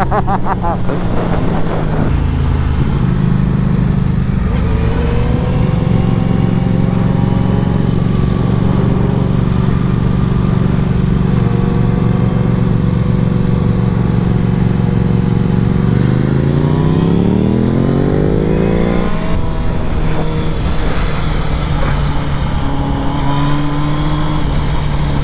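Sport-bike engines running at a steady road speed over rushing wind noise. About two-thirds of the way through, an engine climbs in pitch for about three seconds as it accelerates, then holds a steady note again.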